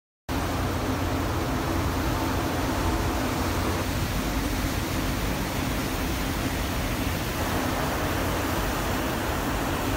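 Steady rushing noise of wind and the churning wake behind the moving cruise ship Zaandam, over a low steady hum from the ship. The sound cuts in abruptly just after the start.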